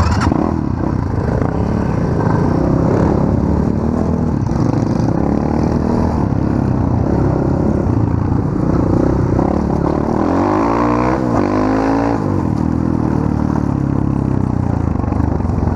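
Small off-road motorcycle (pit bike) engines running under way, revving up and down, with engine pitches sweeping up and down and crossing about ten to twelve seconds in.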